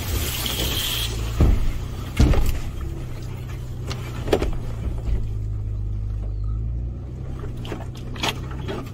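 Toyota FJ Cruiser's 4.0-litre V6 running at low speed on a rough dirt trail, a steady low drone. Four sharp knocks and clunks from the vehicle jolting over ruts and rocks, two loud ones close together a second or two in.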